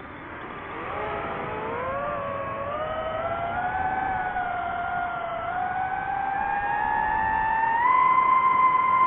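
DJI FPV drone's motors and propellers whining, pitch rising in wavering steps as the motors speed up, then holding a steady high whine near the end.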